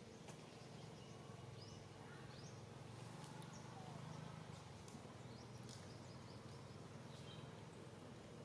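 Faint forest ambience: a low steady hum with a few short, faint rising bird chirps.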